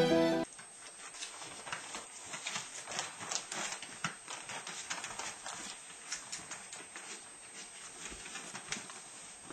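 Background music cuts off about half a second in. Then come light, irregular ticks and rustles, several a second, as Eurasier puppies and an adult dog move their paws over newspaper in a whelping box.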